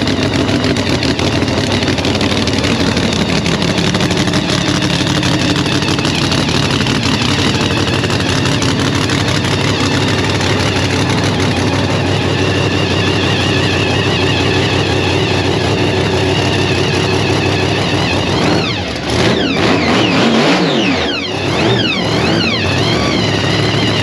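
A loud car engine running steadily, then revved so that its pitch rises and falls several times during the last few seconds.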